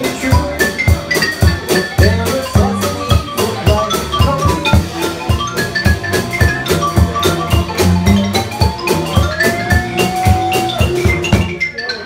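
Live band playing an instrumental passage: upright bass and drum kit under a bright melody, with a busy, steady beat. The music breaks off shortly before the end.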